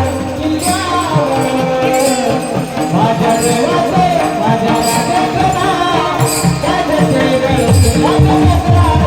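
Devotional singing with small hand cymbals (taal) striking a steady beat about once a second.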